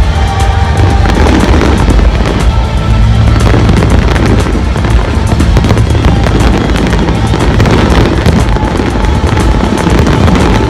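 Fireworks going off continuously in a large display: dense crackling bursts over deep booms, with music playing at the same time.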